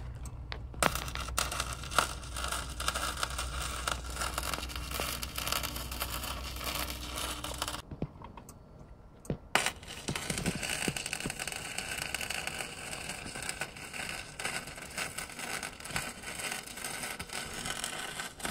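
Electric arc welding steel, the arc crackling steadily as a bead is laid. Two runs with a short pause of about a second and a half in the middle.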